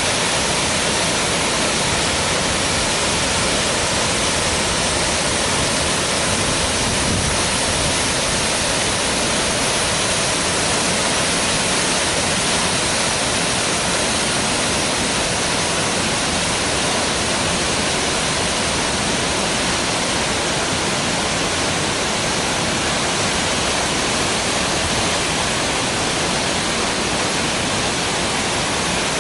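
Waterfall pouring steadily: a loud, unbroken rush of falling water.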